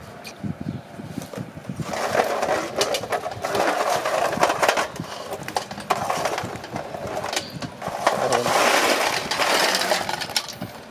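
Quail eggs tumbling from a metal bowl into a stainless steel basin of water, clicking against each other and the metal with splashing, then swished around by hand in the water. The clatter starts about two seconds in.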